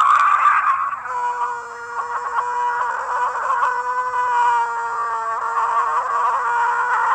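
J. Jonah Jameson's laugh, slowed far down into a long, wavering, pitched wail that begins with a sharp, loud onset.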